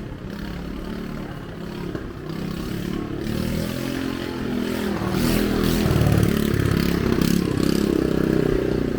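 A motor vehicle engine passing close by on the street, getting louder over several seconds with its pitch shifting, then easing off near the end.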